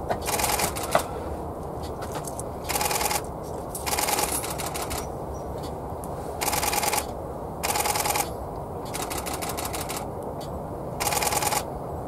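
Camera shutters firing in rapid bursts of continuous shooting: six bursts of about half a second each, every burst a fast rattle of clicks, over steady low background noise.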